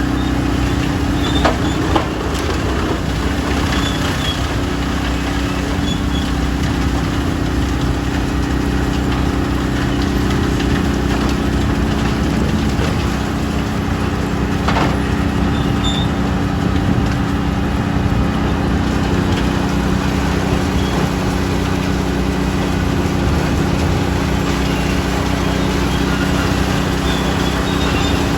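Heavy farm or site machinery's diesel engine running steadily at a constant speed, with a few short knocks near the start and one about halfway through.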